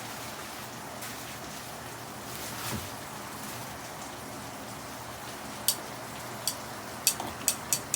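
Steady hiss of rain. Near the end a run of sharp clicks comes in, bunching to about three a second.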